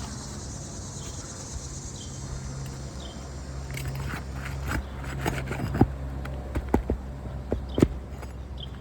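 Scraping and sharp clicks and knocks of a pry tool working under asphalt shingles to pull roofing nails, starting about halfway through. Insects chirp and a steady low hum runs beneath.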